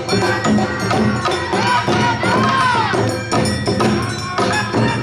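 Awa odori narimono band playing: drums and a ringing kane gong beating a quick steady rhythm, with gliding melody lines over it.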